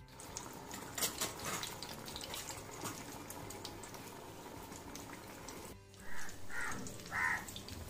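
Potato patties deep-frying in hot oil in a kadai: a steady sizzle with scattered crackles. Near the end, three short scrapes from a metal spatula working the patties.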